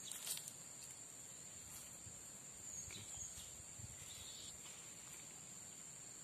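Faint, steady high-pitched insect drone, with a few soft rustles over it.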